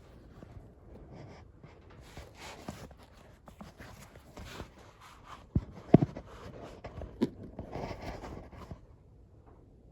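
Clutch ratchet parts and spring being handled and positioned: rubbing and scraping with scattered clicks, and a few sharp knocks around the middle, the loudest about six seconds in.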